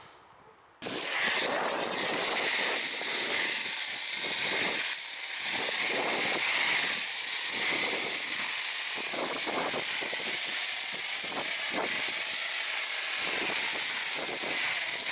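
Griot's Garage Brilliant foam cannon on a pressure washer spraying snow foam: a steady, loud hiss of the high-pressure spray that cuts in abruptly about a second in.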